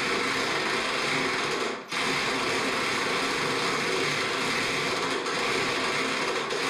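Impact wrench running steadily on a tight hood bolt, stopping for a moment about two seconds in and then running on. The bolt is being run back and forth, in and out, to work it loose without snapping it.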